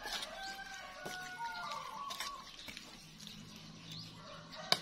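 Metal spoon stirring and knocking against an aluminium saucepan of pork larb, with a few sharp clicks and the loudest knock near the end. Faint, held, gliding calls sound in the background during the first two seconds.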